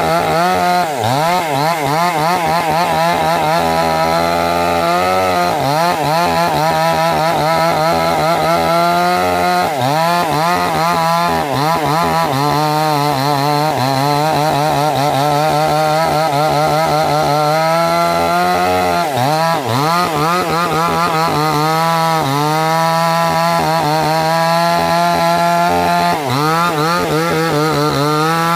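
Large two-stroke petrol chainsaw running at full throttle while cutting into the trunk of a rain tree (trembesi). Its engine pitch dips several times as the chain bogs down in the wood, then climbs back.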